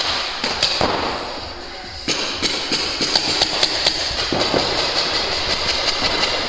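Paintball markers firing in rapid, irregular strings of sharp pops, easing off briefly about one and a half seconds in and starting up again at two seconds.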